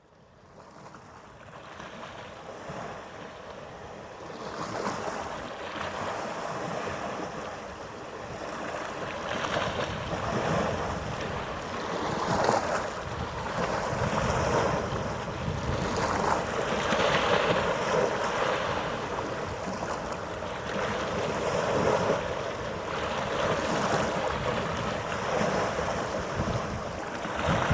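Wind buffeting the microphone over harbour water, rising and falling in gusts every couple of seconds, with a faint steady hum beneath. It fades in over the first few seconds.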